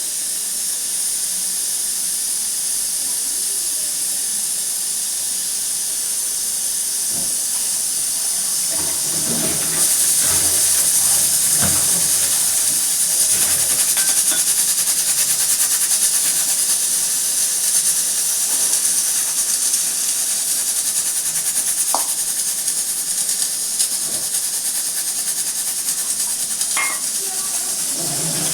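Steam hissing steadily out of a pressure cooker's whistle valve. The high hiss grows louder about ten seconds in.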